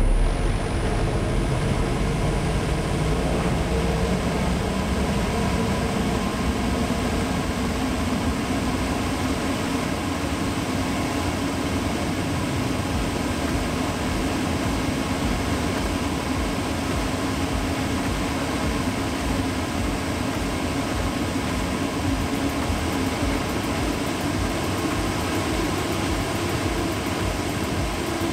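Amano inverter-driven industrial dust collector's fan motor running up to speed: a steady rush of air with a hum that rises in pitch over the first several seconds as the inverter frequency climbs, then holds steady.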